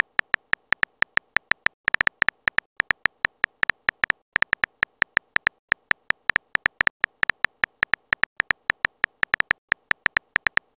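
Simulated phone-keyboard typing sound effect: a short, bright tap for each character typed, in an uneven run of several taps a second with brief pauses.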